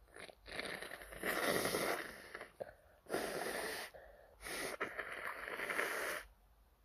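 A person with an itchy nose making three long, loud, breathy nasal blasts, the first and last each lasting over a second.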